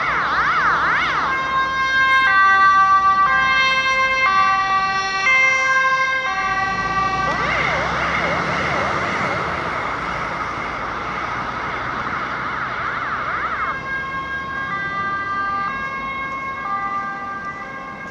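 Ambulance siren on an emergency run, alternating between a fast up-and-down yelp and a stepped two-tone pattern. It grows fainter toward the end as the ambulance drives away.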